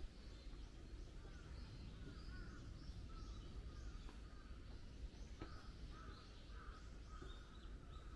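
Birds calling over and over, short calls overlapping one another, over a faint low outdoor rumble.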